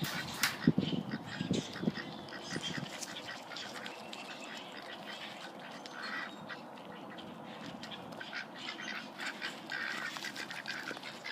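Ducks quacking repeatedly, with a few low thumps in the first two seconds.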